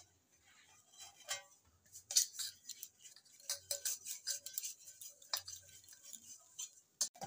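A hand rubbing oil around the inside of a stainless steel bowl: soft irregular rubbing with small ticks and knocks as the bowl is tilted and turned.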